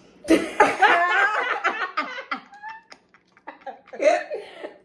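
A woman laughing loudly in two bouts: a long burst just after the start and a shorter one near the end.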